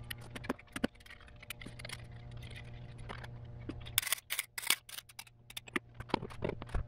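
Scattered metallic clicks and light scrapes of a piston ring compressor being handled and adjusted around a piston in an engine block, with a cluster of sharper clicks about four to five seconds in, over a steady low hum.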